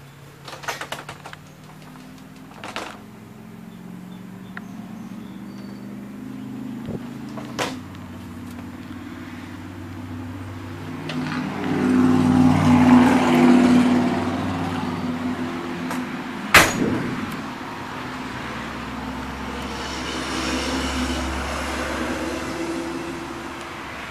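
A motor vehicle running nearby, growing louder in the middle and easing off again, with a few sharp knocks and clicks; the loudest knock comes about two-thirds of the way through.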